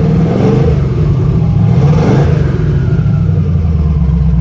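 Turbocharged car engine with Holley fuel injection running at idle, its pitch briefly rising and falling about two seconds in.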